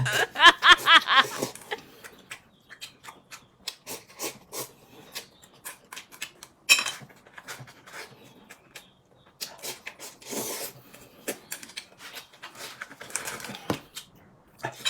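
Meal-table sounds: scattered light clicks and taps of tableware against dishes, with eating noises, after a short vocal sound in the first second or so.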